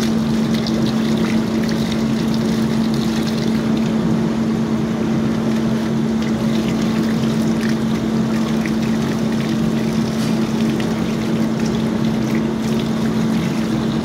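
Electric water pump humming steadily as it pushes water out of a hose, the jet spraying and splashing onto wet concrete.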